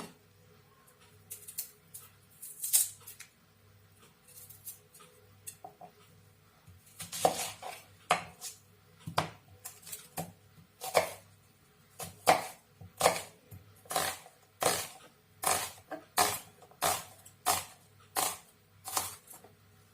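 Knife chopping on a cutting board: a few scattered taps, then from about seven seconds in a steady run of chops, about one and a half a second.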